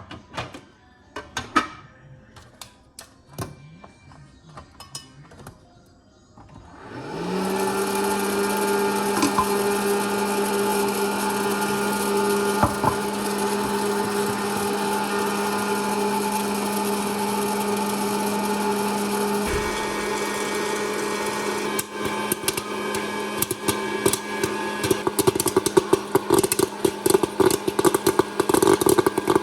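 Scattered light clicks, then a hot-air popcorn machine's blower motor starts with a short rise in pitch and runs with a steady hum. About two-thirds of the way in, kernels start popping and the crackle grows denser over the hum.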